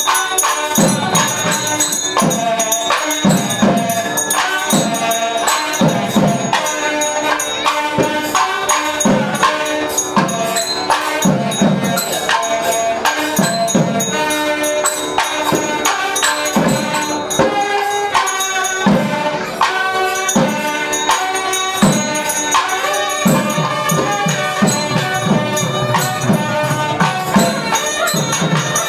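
Devotional temple-festival music: a sustained melody over a steady drum beat about once a second, with quick, sharp strikes of small percussion.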